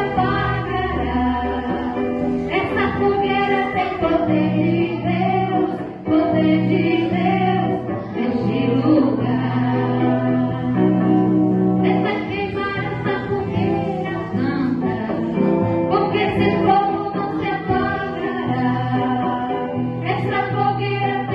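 Gospel music: singing voices over a sustained instrumental backing.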